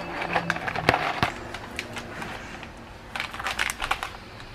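Crinkling packaging and irregular clicks as a box of dry pasta is handled and the pasta goes into a pot of boiling water. There are two sharp clicks about a second in and a cluster of crackles near the end.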